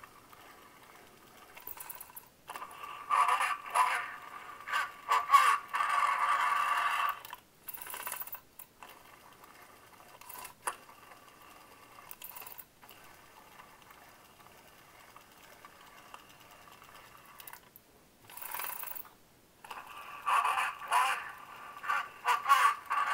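A vintage talking G.I. Joe Action Marine's pull-string voice box playing a recorded phrase through the small speaker in its chest. It sounds thin and tinny, about two and a half seconds in and again near the end, with light clicks and handling noise in between.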